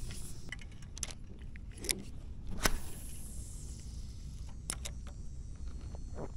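Spinning rod and reel being handled and cast: scattered small clicks and knocks, with a sharp snap about two and a half seconds in followed by a brief hiss as braided line pays out, and a few more clicks a couple of seconds later, over a steady low rumble.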